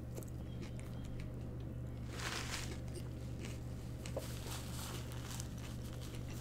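Soft chewing and mouth clicks while eating a chicken club sandwich. About two seconds in comes a short rustle of a paper wrapper being crumpled in the hands. A steady low hum sits underneath.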